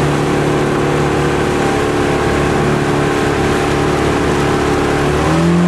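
Boat's outboard motor running steadily at speed over the rush of water from the wake. About five seconds in, its pitch rises as the motor speeds up.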